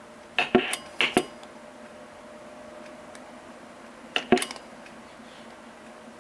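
A Pace 1000-B CB radio being keyed on and off: three pairs of sharp clicks, twice in quick succession about a second in and once more near four seconds in, with brief bursts of receiver static between some of them.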